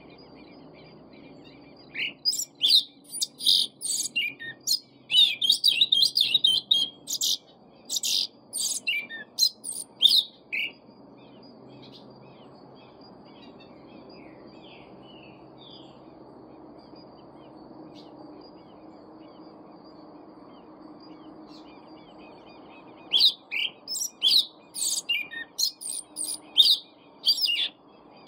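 A caged sabiá-preta thrush singing in two bouts of rapid, high chirping phrases, the first from about two to eleven seconds in, the second starting about five seconds before the end. A steady low hum runs underneath.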